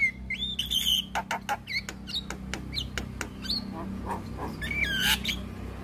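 Javan myna (jalak kebo) calling: a run of sharp clicks mixed with whistled notes that glide up and down, with a falling whistle about five seconds in. A steady low hum lies underneath.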